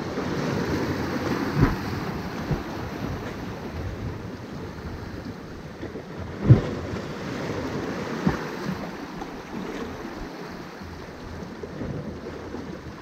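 Small waves lapping and splashing against jetty rocks, with wind buffeting the microphone. A few sharp thumps stand out, the loudest about six and a half seconds in.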